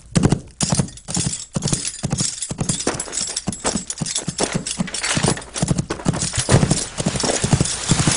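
Horse hoofbeats clip-clopping in a quick, steady rhythm, each step a low thud with a sharp click.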